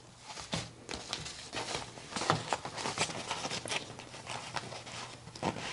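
Scissors cutting through a rubber foam bag stabilizer: a run of soft, irregular snips and taps mixed with light rustling of the material, trimming the foam back out of the seam allowance.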